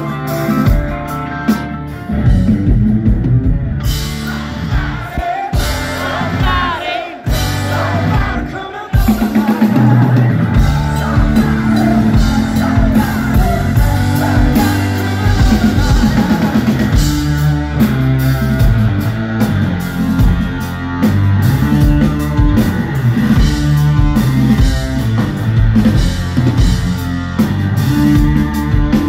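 Live rock band playing: singing over electric guitar, bass and drums, heard from the audience. It thins and dips a few seconds in, then the full band comes back louder about nine seconds in.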